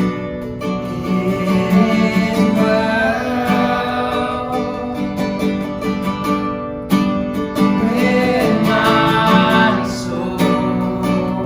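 Worship band music led by strummed acoustic guitar, an instrumental stretch with held notes and a gliding melody line over it.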